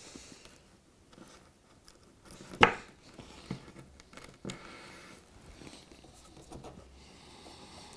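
Small clicks and taps of model railway track being handled and pressed down onto foam track bed, with one sharp click about two and a half seconds in and a few fainter taps after it.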